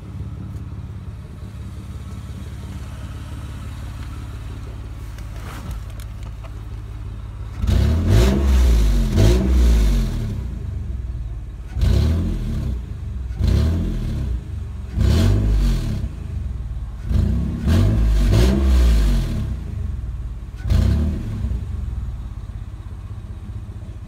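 Toyota Kluger's V6 engine, its exhaust modified with washers, idling steadily, then blipped about six times from about a third of the way in, each rev rising and falling back to idle.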